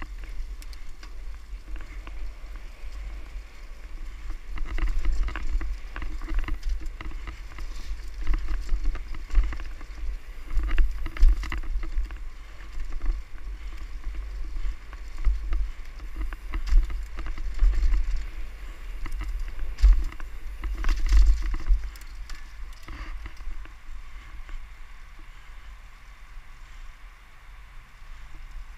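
Mountain bike ridden fast down a dirt singletrack: wind buffets the helmet-mounted microphone with a deep rumble, over tyre noise on dirt and leaves and the bike clattering over bumps. It gets quieter about 22 seconds in.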